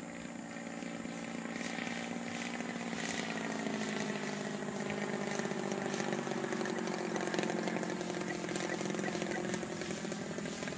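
Engine of a radio-controlled Cap aerobatic model airplane running in flight overhead, a steady engine note that grows somewhat louder and shifts a little in pitch a few seconds in as the plane passes.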